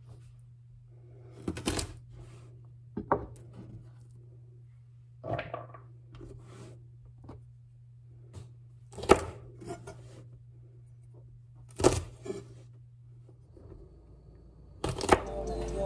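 Large kitchen knife chopping through a bundle of long beans onto a cutting board: about six separate sharp chops, a second or a few seconds apart.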